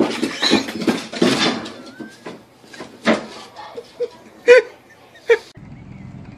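A pug sliding and bumping down wooden stairs: a quick run of thumps and scrapes over the first couple of seconds. Then a few short, loud cries, the loudest about four and a half seconds in, and a steady low rumble near the end.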